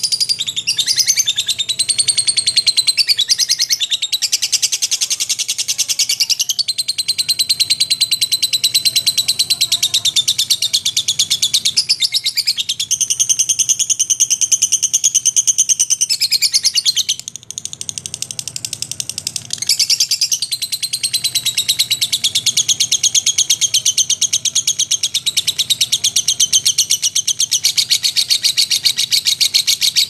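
Lovebird 'ngekek': a long, unbroken, very rapid high-pitched chattering trill. It falters briefly a little past halfway, then picks up again.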